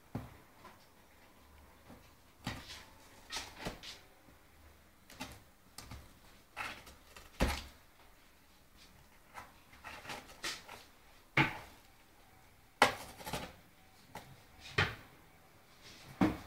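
Dog chewing and tearing cardboard: irregular sharp crunches and rips, about a dozen short bursts with quiet gaps between them.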